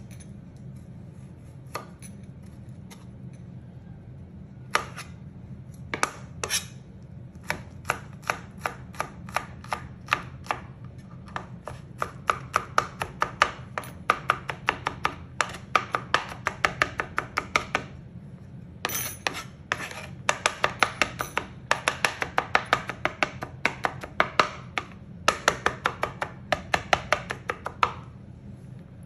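Cleaver-style knife chopping garlic on a plastic cutting board: a few scattered strokes at first, then quick runs of several chops a second broken by short pauses, over a steady low hum.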